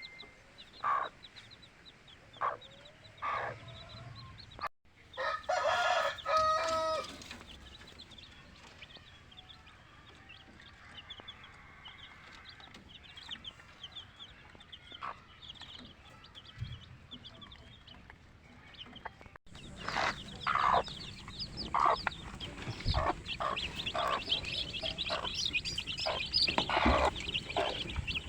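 Aseel-cross native chickens clucking, with a longer crowing call about five seconds in. From about twenty seconds in, a dense high peeping of chicks joins the clucking.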